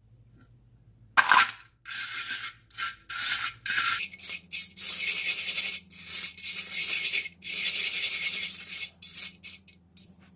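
Crushed eggshells scrubbed by hand against the inside of a wet clay pan: a run of irregular, gritty rubbing strokes, with a sharp clack about a second in.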